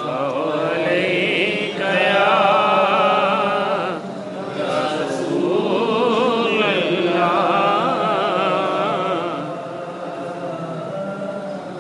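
A man reciting a naat in a melodic, chanting voice. He sings two long, wavering phrases, the second ending about three-quarters of the way through, and his voice is softer after that.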